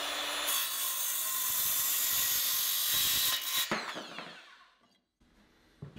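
Makita 6.5-inch cordless circular saw crosscutting a 2x4: the motor whines up to speed, cuts through the board for about three seconds, then winds down with a falling whine.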